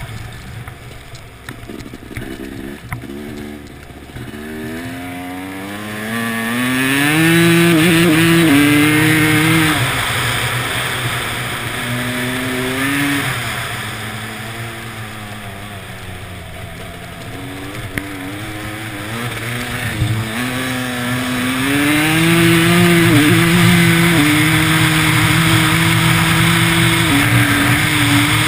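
Dirt bike engine accelerating hard up through the gears, its pitch climbing in steps. It eases off in the middle, then pulls up again and holds high revs near the end, over a steady hiss.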